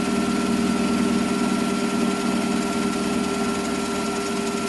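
Metal lathe running, its four-jaw chuck spinning an offset workpiece while the tool skims it: a steady machine hum with a thin, high held whine. The tool is still cutting intermittently on the offset, not-yet-true stock.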